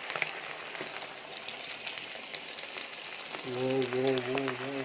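Coated chicken pieces deep-frying in hot oil, a steady sizzle full of small crackles. A low wavering hum joins over the sizzle in the last second and a half.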